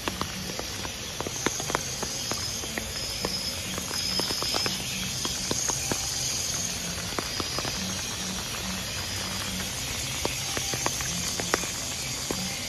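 Steady light rain falling on a paved walkway and dense foliage, with scattered close raindrops tapping sharply and irregularly. Faint high insect-like chirring comes and goes behind it.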